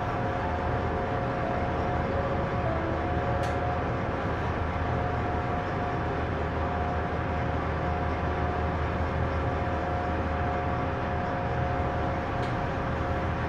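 A 2600 hp tugboat's twin V8 diesel engines running steadily: a constant low drone with an even, high whine over it.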